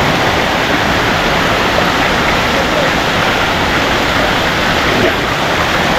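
Waterfall's rushing water: a loud, steady wash of noise with no breaks.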